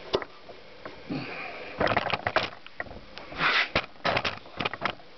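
Scattered sharp clicks and light knocks of metal parts being handled on a Honda CX500's open aluminium crankcase, with a short sniff-like hiss about three and a half seconds in.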